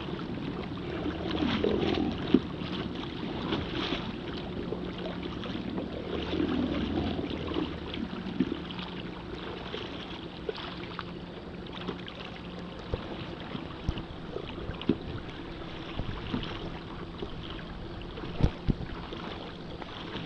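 Kayak paddle strokes splashing water beside the hull in a steady rhythm, with wind on the microphone. Scattered sharp knocks, as of the paddle striking the kayak.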